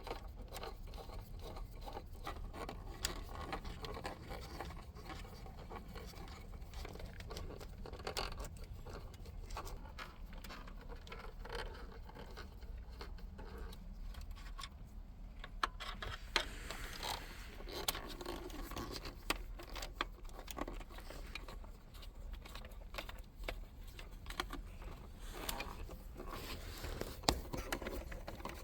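A Torx screwdriver backing screws out of a plastic dashboard panel: small scrapes and rustles with scattered sharp clicks, over a low steady hum.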